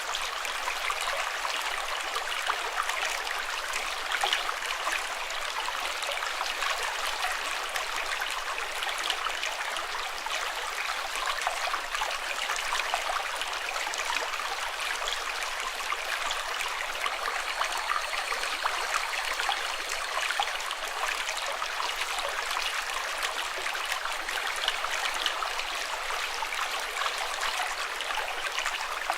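Running water babbling and splashing steadily, full of small crisp splashes, light and hissy with no deep rumble.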